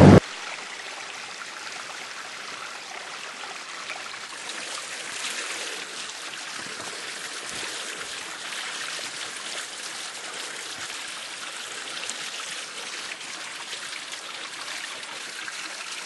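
Steady running water, a small stream flowing and trickling without a break.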